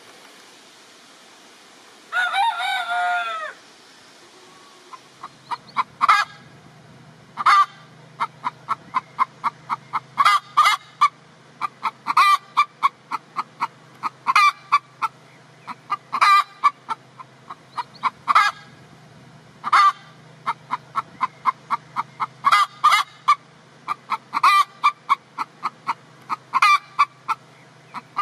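A Danish landrace rooster crows once, about two seconds in. Chickens then cluck in a long run of short, quick notes, several a second, with a louder cluck every second or two.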